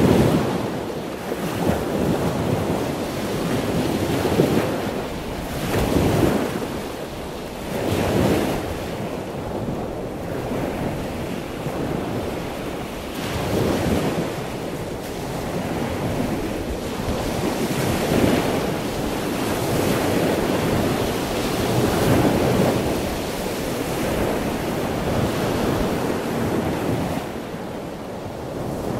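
Choppy sea splashing and rushing against the side of a boat, with wind buffeting the microphone; the noise rises and falls in irregular surges.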